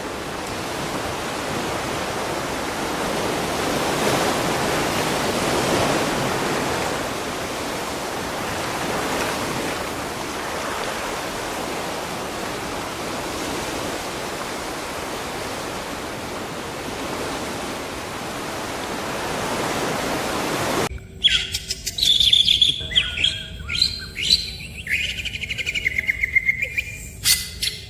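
A steady rushing noise, like running water or wind, for about twenty seconds, then a sudden cut to birds calling: quick chirps, squawks and rising and falling whistles.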